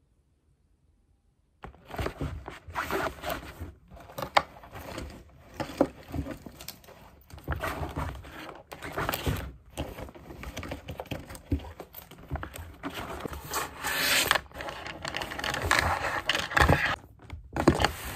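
Bags being handled and packed on a table: fabric rustling, scraping against the tabletop and a laptop, with scattered small clicks and knocks, starting about two seconds in.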